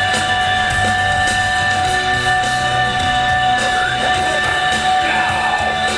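Background rock music with guitar.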